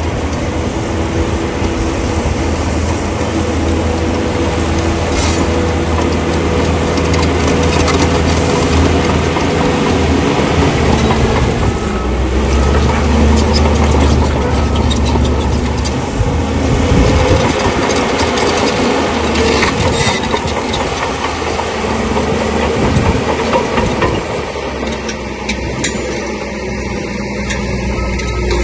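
Crawler bulldozer's diesel engine running steadily under load, with scattered knocks and clanks from its tracks and blade working through stone.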